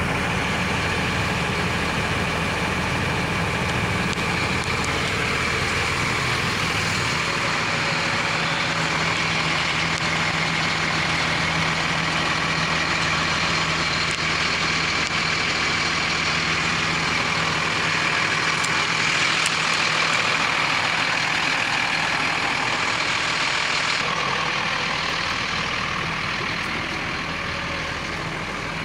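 2002 Sterling L7500 truck's diesel engine idling steadily, a little quieter near the end.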